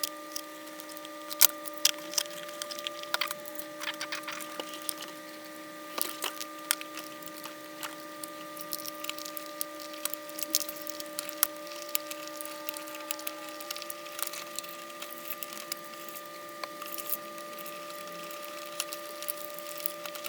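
Irregular clicks and taps of hands handling a Mac mini and plugging cables into its back, over a steady hum.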